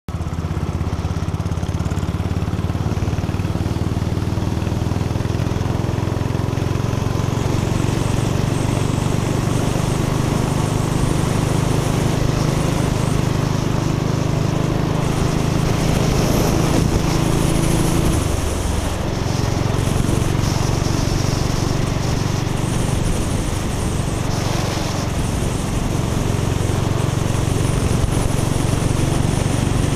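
Motorcycle engine running steadily under way, with wind rushing past. Its note dips briefly about two-thirds of the way through, then picks up again.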